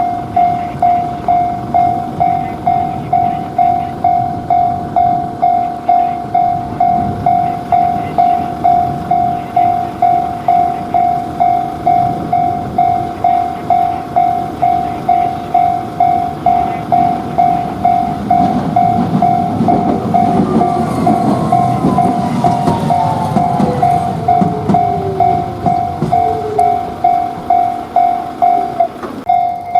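Japanese railway-crossing warning bell ringing a steady electronic "kan-kan" about twice a second. Over it a tram rumbles across the crossing about two-thirds of the way in, with a few squeals from its wheels falling in pitch.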